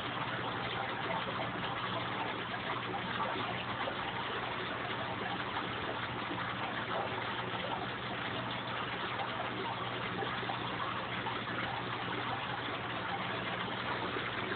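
Aquarium water bubbling and splashing from an air stone's stream of bubbles, a steady rushing sound with a low hum under it.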